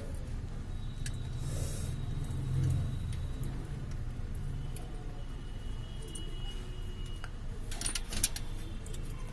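Metal parts and tools clinking as a clutch pressure plate is fitted and bolted onto the flywheel, with a cluster of sharper clinks about 8 seconds in. A steady low hum runs underneath.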